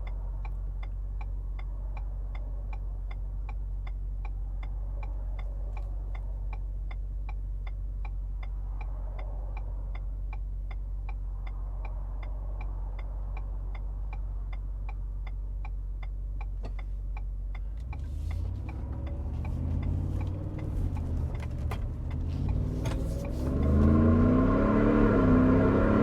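Supercharged V8 of a Ford F-150 Shelby Super Snake Sport idling with a low rumble and a steady clicking about twice a second, heard from inside the cab. About two-thirds of the way in the engine revs up and the truck launches hard, the side-exit exhaust getting much louder as it accelerates.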